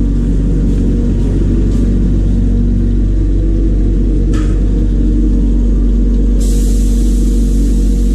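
Piston air compressor running with a steady low hum. A short puff of air comes about four seconds in. About six seconds in, compressed air starts hissing steadily from a gravity-feed spray gun as its trigger is pulled.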